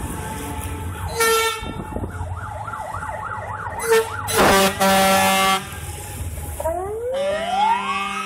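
A military convoy passing: the deep engine rumble of a Stryker armored vehicle driving by, with a short horn blast about a second in and a long loud horn blast around the middle. Under the horns a siren yelps fast, and near the end a siren starts a slow rising and falling wail.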